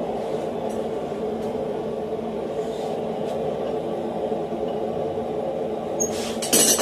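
Steady drone of the running forge in the shop. Near the end come a couple of sharp metal strikes, as a hammer starts driving the final drift into the eye of the hot steel hammer head.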